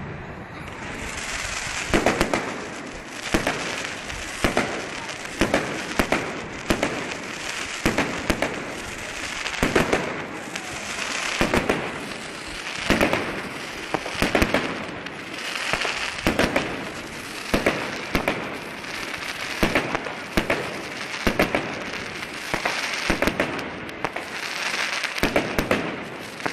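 Fireworks display: repeated clusters of bangs about every one to two seconds, with continuous crackling in between.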